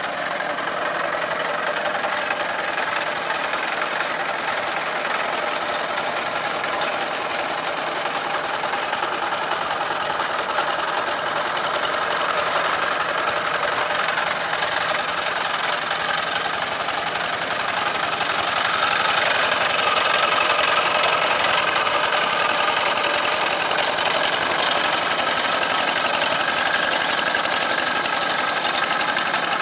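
Old Kubota single-cylinder diesel engine on a walk-behind hand tractor, running steadily under load while levelling a flooded rice field. It grows a little louder about two-thirds of the way through.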